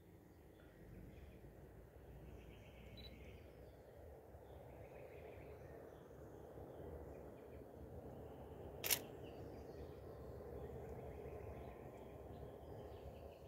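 A single camera shutter click, sharp and short, about nine seconds in, over a faint outdoor background.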